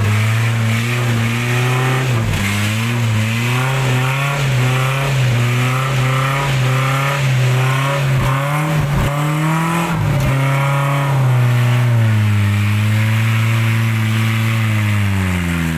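Off-road 4x4's engine revving up and down over and over as the throttle is worked, then holding steadier before the revs fall away near the end.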